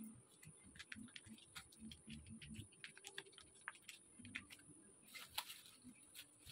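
Near silence: faint, irregular ticks and soft patter from a wok of spiced coconut-water broth as sweet soy sauce is squeezed in from a sachet. A slightly brighter cluster of ticks comes about five seconds in.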